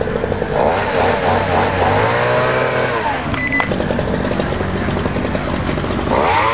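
A motor revving, its pitch rising and falling twice, with a short high beep about three seconds in.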